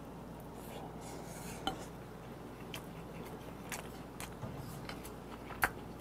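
Spoon clinking and scraping against a bowl as rice is mixed and scooped, a few sharp clicks with the loudest near the end, over soft chewing.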